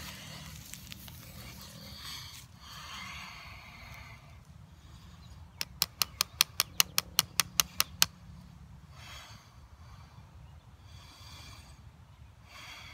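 A folding knife with a serrated edge scraping and sawing at a small piece of dry wood, in rasping strokes. About a third of the way in comes a quick, even run of about a dozen sharp clicks as the blade works against the wood.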